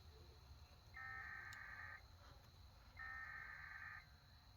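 Emergency Alert System SAME header: two bursts of digital data tones, each about a second long, about a second apart. These are the coded alert message, giving event type and area, sent before the attention tone of a weather radio alert.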